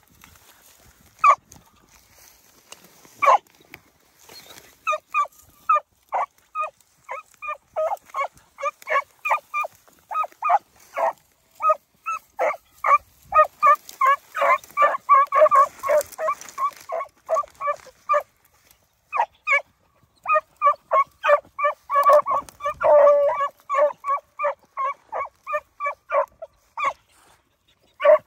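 Beagle hounds baying on a rabbit's scent trail. A few scattered barks come first, then from about five seconds in a steady run of short barks, two or three a second, which breaks off briefly about two-thirds through and resumes.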